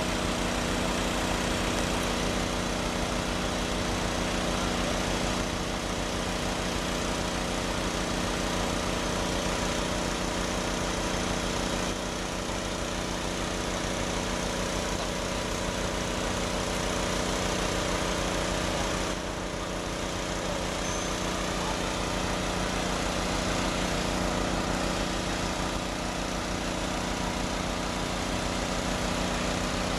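Vehicle engine idling steadily, a constant low hum that does not change in pitch.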